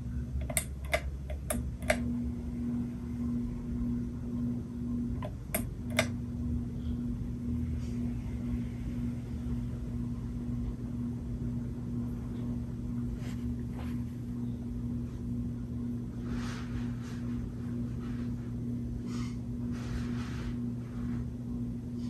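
Hampton Bay Wellston 44-inch ceiling fan running with a steady motor hum that pulses evenly. Several sharp clicks come in the first two seconds and two more about six seconds in, and the hum dips briefly with them.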